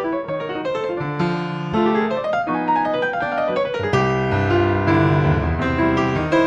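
Instrumental music led by piano, a run of melody notes, with low bass notes coming in about four seconds in.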